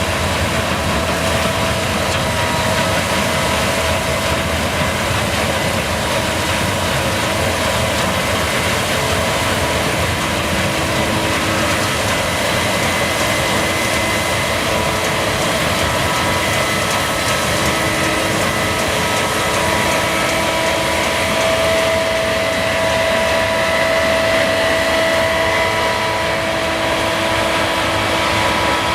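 Case combine harvester running steadily while harvesting barley: a constant engine and machinery drone with a high, steady whine over it.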